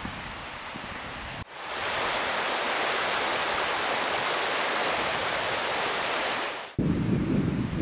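River Bradford's white water rushing through the arch of a small stone bridge: a steady, loud rush of running water. It starts abruptly after a softer stretch of river ambience and cuts off sharply about a second before the end, giving way to a louder, low, gusting rumble.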